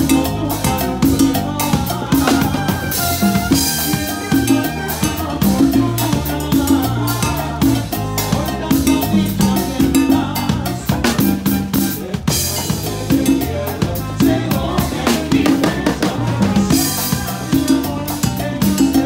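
Live band music with a drum kit and percussion keeping a steady, busy beat over a pulsing bass line. Cymbal crashes wash in a few times, about three seconds in, around twelve seconds and again near seventeen seconds.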